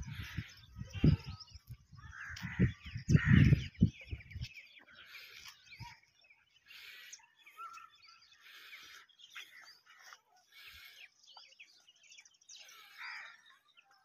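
Wind buffeting the microphone in low rumbles for the first four seconds or so, then small birds chirping and crows cawing in the background.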